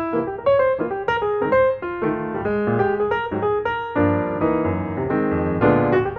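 Background piano music, a quick flowing run of notes.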